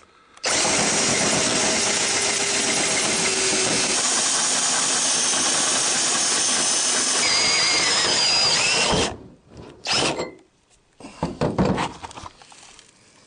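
A power tool running steadily while cutting a hole for the grey water tank's vent pipe. It stops suddenly after about eight seconds, then runs in two short bursts.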